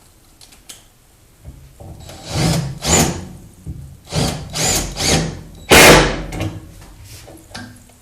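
Porter-Cable PCCK640LB impact driver run in about four short bursts, each swelling up and dying away, the last and loudest about six seconds in, as it starts a 4-inch lag bolt into a 2x4.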